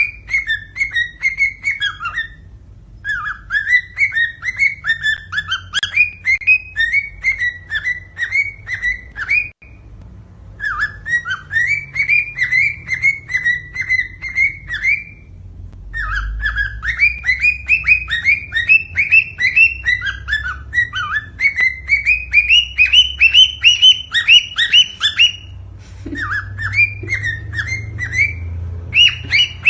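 Cockatiel singing: phrases of rapid, repeated chirping whistles, each a few seconds long, with short pauses between them.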